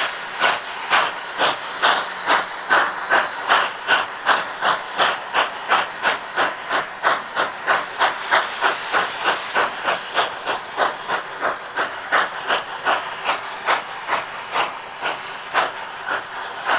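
Narrow-gauge steam locomotive working under steam, its exhaust chuffing in an even rhythm of about three beats a second.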